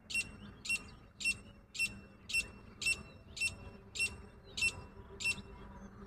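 Female grey francolin calling: a run of ten short, sharp, high notes at an even pace of about two a second.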